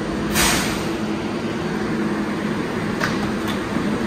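New York City Subway R188 train on the 7 line rolling to a stop at the platform, its motors humming steadily. A sharp hiss of air brakes comes about half a second in, and two short clicks come near the end.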